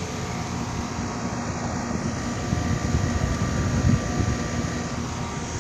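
Outdoor central air-conditioning condensing unit running steadily, its Genteq ECM condenser fan motor and compressor giving a constant hum with a few fixed tones over a rough low rumble.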